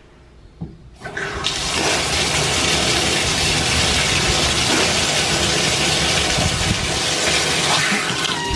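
Bathtub faucet handle turned with a small click, then water from the tub spout pours steadily into the bathtub from about a second in.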